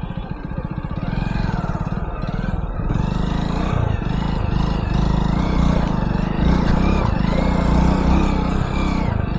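Hero Splendor motorcycle's single-cylinder four-stroke engine running at low speed on throttle over muddy ground, its pulsing note getting louder about three seconds in.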